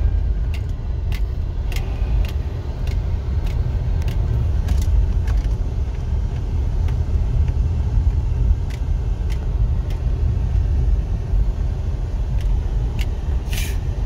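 Car cabin noise while driving slowly over a rough dirt road: a steady low rumble, with scattered small clicks and knocks.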